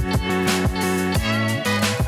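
Background music with a steady beat and sustained instrumental notes.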